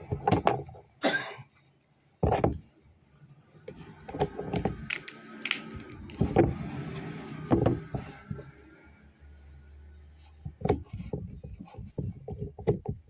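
Irregular clicks and knocks of objects being handled, with a brief low hum about nine seconds in.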